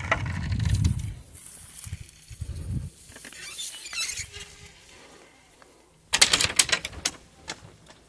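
Tucum palm leaves rustling and tearing as the embira fibre is stripped off by hand, with a burst of rapid crackling about six seconds in.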